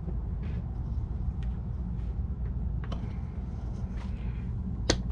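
A steady low rumble, with a few small clicks of metal parts being handled as the C-clips on an RC truck's drive shaft are worked at, and one sharper click near the end.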